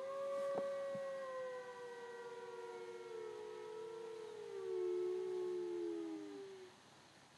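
Two or more canines howling together: long held howls that overlap, slowly fall in pitch and fade out near the end.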